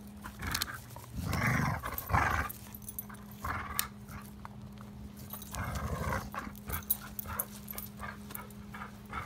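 English Springer Spaniel growling in short bursts, loudest from about a second in and again around six seconds, with sharp clicks and cracks from its teeth on a wooden stick.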